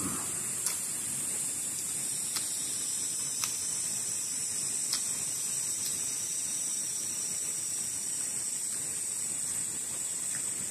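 Steady high-pitched drone of insects, with a few faint sharp clicks.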